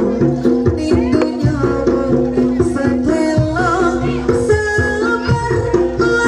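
Live jaranan gamelan music: metallophones repeating a ringing pattern with drum strokes between, and a wavering higher melody line above them.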